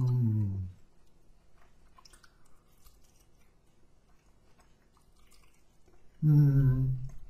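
A person chewing chicken wings close to the microphone, with faint wet chewing and small mouth clicks. A short hummed "mm" falls in pitch at the start, and a louder hum comes about six seconds in.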